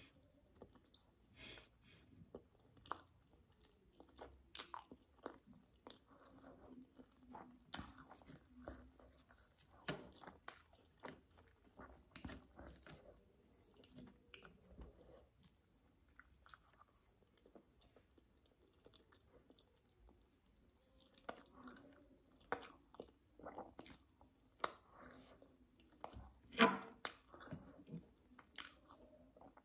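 Close-up mouth sounds of a person eating roti with matar paneer: soft, irregular wet chewing with lip smacks and clicks. The loudest smack comes near the end.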